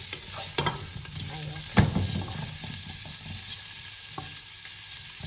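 Shrimp frying with a steady sizzle while a wooden spatula stirs them in a nonstick pan, scraping and knocking against the pan a few times, the loudest knock about two seconds in.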